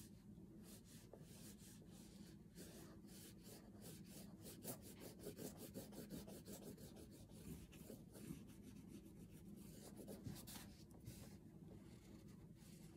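Oil pastel scratching across paper in quick, repeated back-and-forth colouring strokes, faint.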